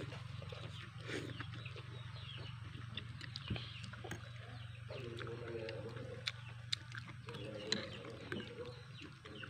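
Quiet eating sounds: noodles being slurped and a few sharp clicks of forks and spoons against ceramic bowls, over a steady low hum, with faint bird chirps in the background.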